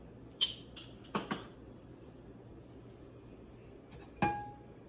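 A spoon clicking and tapping against a small bowl and a frying pan as ghee is spooned into the pan. There are a few light clicks in the first second and a half, then one tap a little after four seconds that rings briefly.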